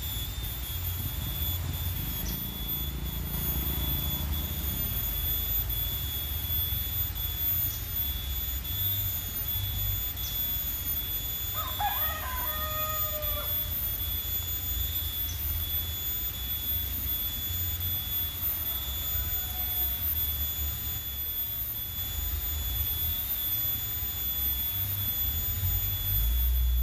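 A rooster crowing once, about twelve seconds in, with a fainter call later, over a steady low rumble and a faint steady high tone.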